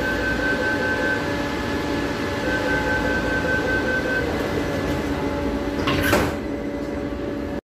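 Taipei Metro train door-closing warning: a rapid high-pitched beeping in two runs over the train's steady hum, then a short rushing sound about six seconds in as the sliding doors close.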